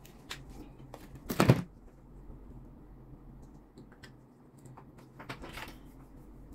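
Plastic clicks and rattles from handling and fitting a dryer's control-panel housing and display circuit board, with one louder clatter about a second and a half in and a softer one near the end.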